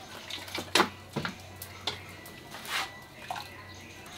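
Thick blended chile sauce being poured from a blender jar into a plastic strainer: a few short wet plops and light knocks of the jar against the strainer, with a brief swish past the middle.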